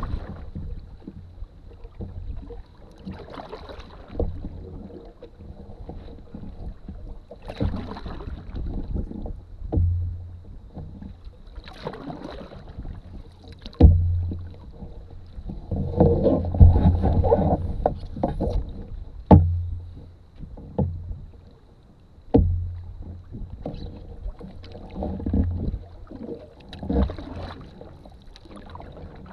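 Canoe paddle strokes: water swishing off the blade every few seconds, with a few sharp knocks of the paddle against the canoe's side, the strongest about a third and two thirds of the way through.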